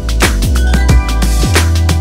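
Background electronic music with a steady, fast drum beat and deep bass.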